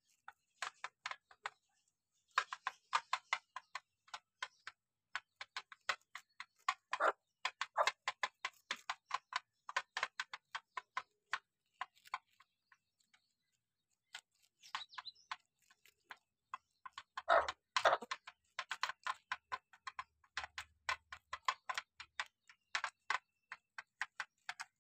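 White rabbits chewing raw cauliflower: fast, crisp crunching in dense runs, with a couple of short pauses.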